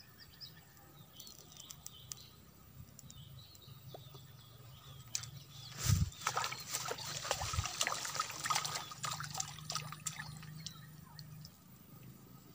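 A small hooked tilapia splashing and thrashing at the water surface as it is reeled toward the bank. It begins about halfway through with a couple of dull bumps, runs for several seconds and fades near the end.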